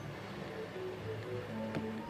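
Background music: a melody of short held notes over a steady bass line.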